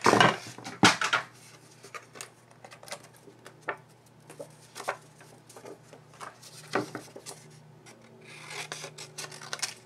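Paper rubbing and sliding as craft supplies are handled on a work mat, with scattered light taps, two louder rustles at the start and about a second in, and a longer scrape of paper near the end.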